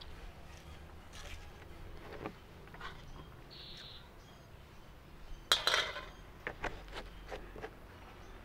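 Metal cookware being handled: pots and pans clinking and knocking as the pot is moved off the stove and the pan is set up for sautéing. A sharper clatter comes about five and a half seconds in, followed by a few lighter clicks.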